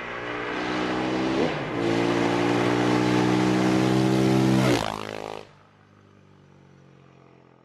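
KTM 701 Supermoto's single-cylinder engine, fitted with an aftermarket exhaust, accelerating hard at full throttle toward and past. Its pitch dips briefly about a second and a half in as it changes up a gear, and the sound drops away suddenly as it passes, about five seconds in.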